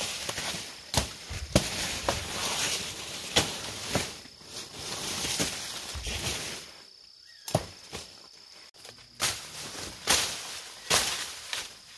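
Weeds and leafy undergrowth rustling and snapping as they are pulled out by hand, in irregular bursts with sharp cracks of breaking stems, pausing briefly a little past halfway.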